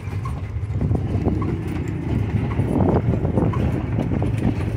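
A carriage horse's hooves clip-clopping on the street as it pulls the carriage, a run of uneven knocks over a steady low rumble.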